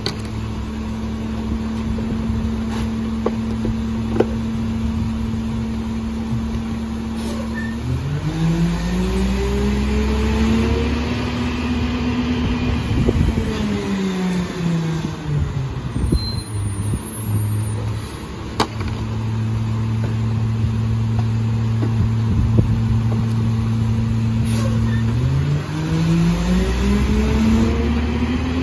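McNeilus rear-loader garbage truck's engine idling, then revving up for several seconds and settling back to idle, then revving up again near the end: the engine speeding up to drive the hydraulic packer as it compacts the load. Two sharp knocks are heard, one early and one mid-way.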